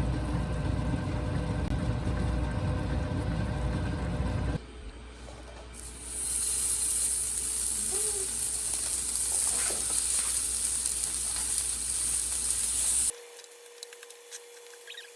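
Food sizzling in a hot pan: a steady bright hiss for several seconds in the middle. It comes after a low rumbling noise at the start and gives way near the end to a quiet stretch with a faint steady hum.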